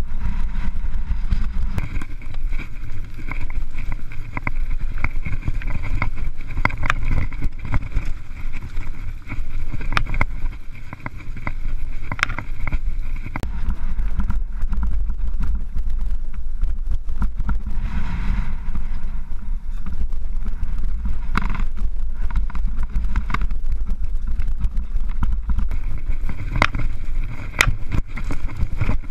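Mountain bike riding down a rough gravel and rock trail, heard from a camera on the rider or bike. Wind buffets the microphone in a steady low rumble, and the tyres crunch over loose stones while the chain and frame give sharp rattling clicks over the bumps.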